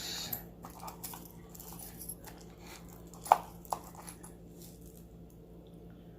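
Small clicks and rustles of jewelry and packaging being handled. About three seconds in there is a brief sharp squeak, then a fainter one just after.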